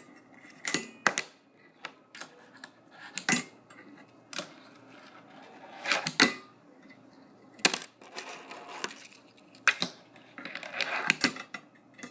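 Fingerboard clacking and scraping on a grind rail during nose-grind attempts: a series of sharp, irregular clacks from pops and landings. There are short stretches of trucks scraping along the rail about eight seconds in and again near the end.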